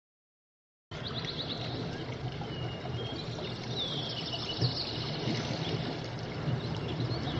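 Silence for about the first second, then a steady rushing noise with high bird calls gliding and chirping over it.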